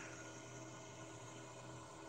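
Faint steady low hum with a soft hiss: quiet background inside a parked car.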